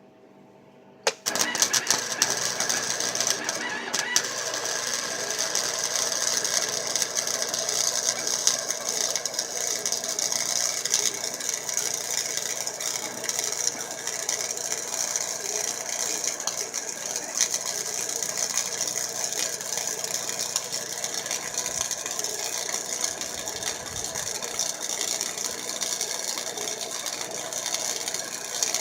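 Flux-core wire welder (Chicago Electric 90-amp) laying one long continuous bead: the arc strikes about a second in and then crackles steadily and unbroken.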